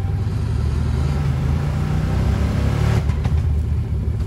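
6x6 ATV's engine running and revving up a little under throttle, with a rising rush of noise that stops abruptly about three seconds in, followed by a few short knocks.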